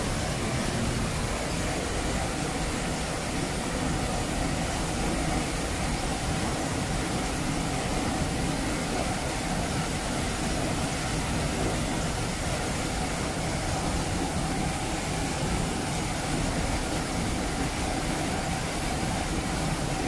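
A cascading waterfall, water rushing down rock steps with a steady, unbroken rush of noise.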